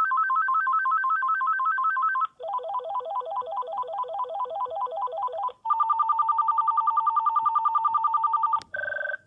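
VTech CS6529 cordless phone handset playing through its ringtones: fast electronic warbles and trills, the pattern and pitch changing about every three seconds. A click comes near the end, then the short beeping bursts of the next ringtone begin.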